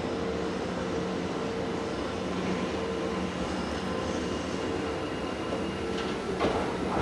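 Kintetsu electric train creeping into a station platform: a steady running hum with a couple of held tones, and a few sharp clacks from the wheels about six seconds in.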